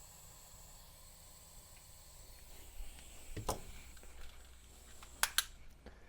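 A few short sharp clicks and taps of small parts being handled while a replacement battery's wires are connected into a headtorch, over a faint steady hiss with a thin high tone. One tap comes about halfway through and a quick pair comes near the end.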